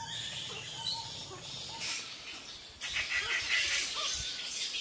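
A roosting colony of flying-fox fruit bats, many screeching and chattering at once, the din growing louder about three seconds in.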